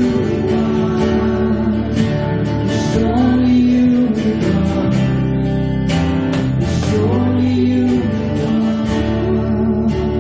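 Live worship band playing a slow song: strummed guitar over held chords, with drums and cymbal hits every second or two.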